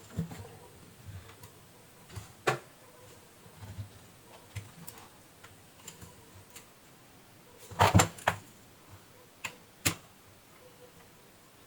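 Scattered light clicks and taps of small hard parts and tools being handled, with a louder cluster of clicks about eight seconds in.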